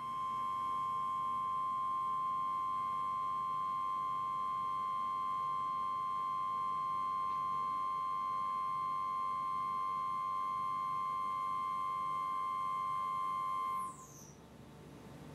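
Four-flute square end mill slotting SUS304 stainless steel and chattering: a steady, high-pitched squeal with overtones that cuts off near the end. The chatter marks an unstable cut in which the chips are not being cleared from the slot.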